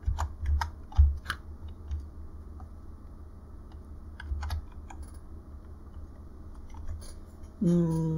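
Typing on a computer keyboard: scattered keystroke clicks, several in the first second and a half and a few more about four and a half seconds in, with pauses between. Near the end a man's voice makes a brief sound of under a second.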